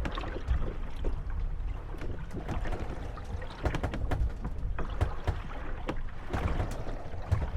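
Moored wooden gondolas rocking on the waves, knocking and creaking against each other in irregular clatters over a steady low wash of water.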